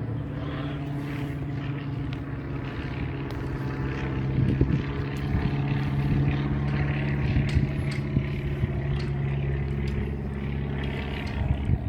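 Single-engine propeller plane, a Cessna by its look, droning steadily overhead, growing a little louder in the middle and then easing off.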